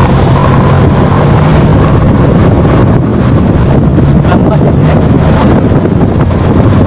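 Wind rushing over the microphone on a moving motorcycle, with the engine's low steady hum underneath.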